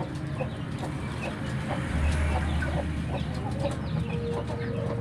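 Chickens clucking, with many short, scattered calls. A low steady hum comes in about two seconds in.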